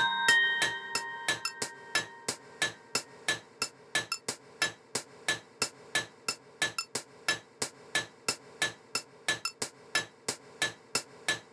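Clock-tick percussion in an electronic music track: sharp, dry clicks about three to four a second, some doubled, playing alone with the mallet melody dropped out. A last bell-like note fades away over the first couple of seconds.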